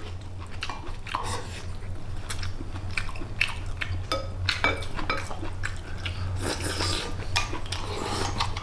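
A person chewing and eating stir-fried pork kidney, with chopsticks clicking irregularly against porcelain bowls. A steady low hum runs underneath.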